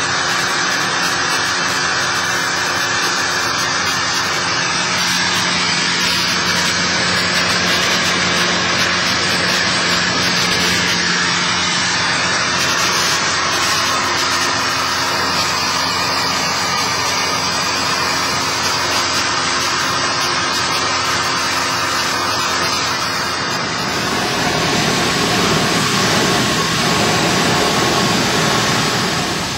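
Cessna 172's single piston engine and propeller running steadily in flight, heard from inside the cabin with a constant hiss of wind. The sound changes in tone about three-quarters of the way through.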